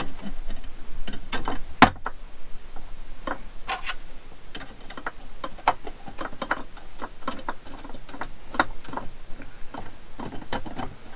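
Brass yacht lamp and its gimbal bracket clicking and clinking as they are fitted together by hand: irregular small metal clicks and taps, the sharpest about two seconds in.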